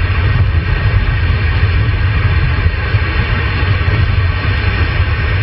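Steady low road and engine rumble of a car driving, heard from inside the cabin, with an even hiss of CB radio static over it.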